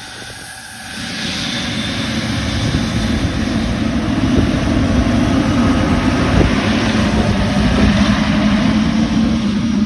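Boeing 777 jet engines running loud: a rumbling roar with a low drone that swells about a second in and then holds steady.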